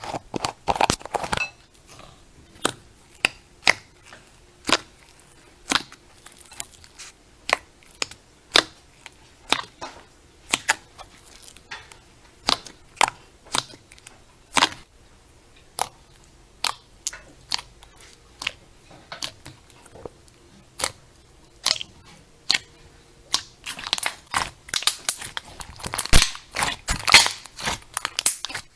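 Crunchy slime being pressed and squeezed by hand, giving sharp crackling pops about once a second, thickening into a dense run of crunching near the start and again near the end.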